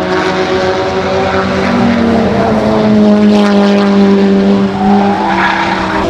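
Race car engine at full throttle on the straight, a steady droning note whose pitch climbs slowly, then changes about five seconds in.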